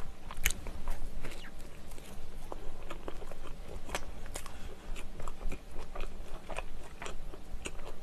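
Close-miked eating of a soft sausage bread roll: a bite about half a second in, then chewing with irregular wet mouth clicks and smacks.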